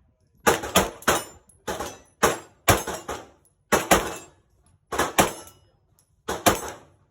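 Handgun shots at an indoor range, about a dozen in uneven succession, some in quick pairs. Each shot is a sharp crack with a short echo off the walls.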